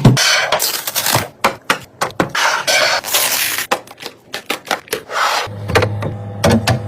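Items being handled and set down: a busy run of clicks, knocks and short scrapes and rustles. A steady low hum comes in about five and a half seconds in.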